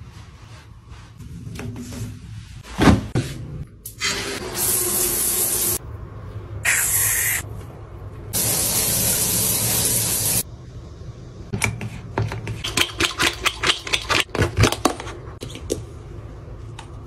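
Three short bursts of hissing spray, each one to two seconds long, after a single sharp knock, then a run of quick clicks and taps.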